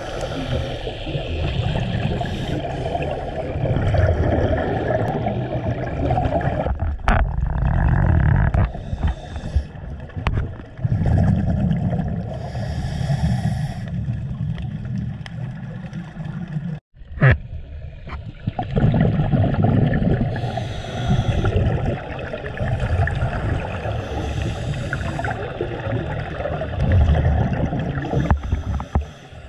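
Underwater sound of scuba divers breathing through regulators: a low bubbling rumble that swells with each exhalation every few seconds. It cuts out abruptly for a moment about halfway through.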